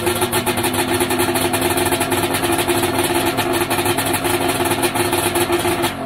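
Polaris Indy 650 three-cylinder two-stroke snowmobile engine with triple expansion-chamber pipes, running steadily on its first run after a cylinder-stud replacement. It is switched off at the very end and begins to wind down.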